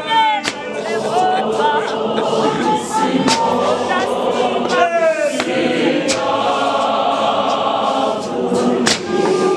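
Large church choir of men and women singing a capella in harmony, with a few sharp cracks cutting through the singing.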